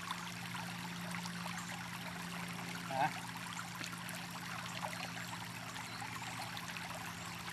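Shallow creek water trickling and running steadily, with a low steady hum underneath.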